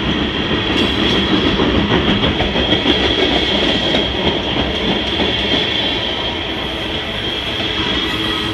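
Tank cars of a BNSF freight train rolling past close by: a steady rumble and rattle of the wheels on the rails, with a steady high-pitched ring held over it.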